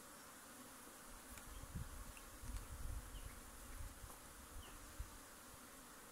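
Faint buzzing of honeybees around an open hive, with a low rumble from about a second in until about five seconds in.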